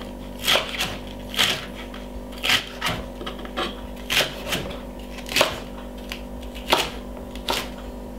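A large kitchen knife slicing through iceberg lettuce onto a wooden chopping board: about ten crisp crunching cuts, each ending in a knock on the board, at an uneven pace of roughly one a second.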